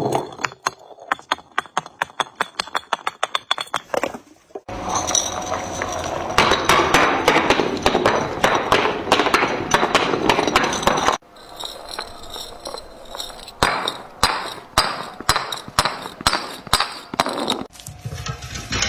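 Glass being crushed and broken in several cut-together stretches. It opens with a quick run of sharp clinks and cracks. After about four seconds comes a loud, dense crunching that lasts several seconds. From about eleven seconds in, separate sharp cracks and snaps follow.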